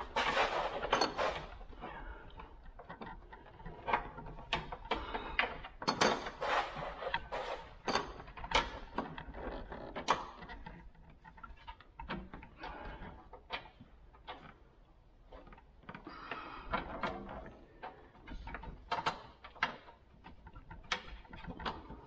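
Irregular clicks, taps and scrapes of metal parts being handled as an A/C line and its fitting are worked into place at the condenser in a tight space.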